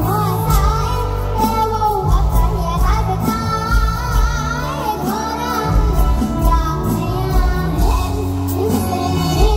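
A young girl singing a mor lam song live into a microphone, her voice gliding through ornamented melodic turns over a band with a steady pulsing bass beat.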